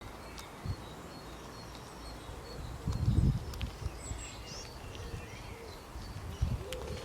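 Outdoor ambience with short high-pitched chirps repeating every few tenths of a second, and a few higher gliding chirps partway through. A low rumble about three seconds in is the loudest thing, like wind or handling on the microphone.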